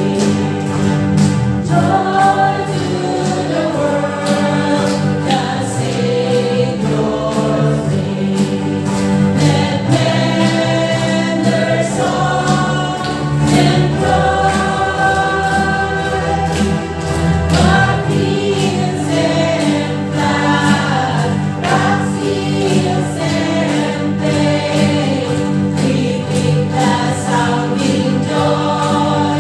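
A choir singing a Christian carol with instrumental accompaniment.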